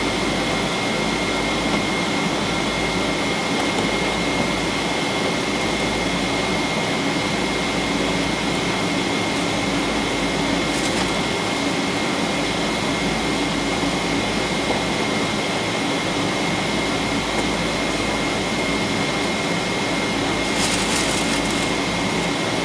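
Boeing 777-200ER's jet engines running steadily: an even roar with a thin high whine held over it, and a faint rattle near the end.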